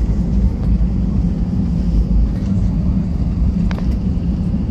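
Steady loud rumble of an airliner rolling out on the runway after touchdown with its wing spoilers raised, heard from inside the cabin. One sharp click about three-quarters of the way through.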